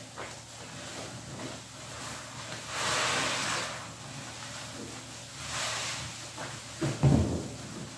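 A suds-soaked sponge squeezed and wrung by hand in soapy water, wet squishing in two longer swells about three and five and a half seconds in. A louder, low wet thump comes about seven seconds in.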